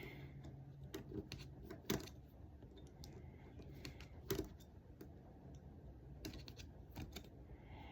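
Faint, scattered light clicks and taps of a small screwdriver and metal parts on an iPhone 6 as a tiny screw is worked out near the home button, with the sharpest clicks about two and four and a half seconds in.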